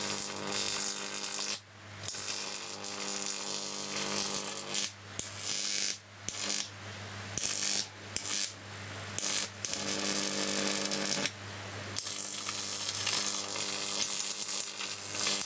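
10 kV neon sign transformer arcing across a phone circuit board: a steady electrical buzz with crackling hiss that breaks off briefly several times and restarts. The NST's 30 mA current is too low to burn the board.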